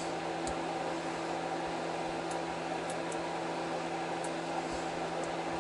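Steady low hum and hiss, with a few faint light ticks of a hook pick probing the pin stack of a Kasp padlock.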